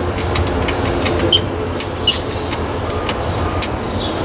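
Payphone keypad buttons pressed one after another, about a dozen sharp clicks, over steady street traffic rumble; someone is dialing on a street payphone that gives no dial tone.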